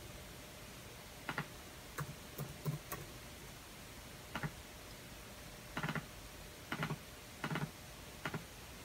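Computer keyboard keystrokes: scattered single clicks and short quick runs of two or three, about ten in all, with pauses between them.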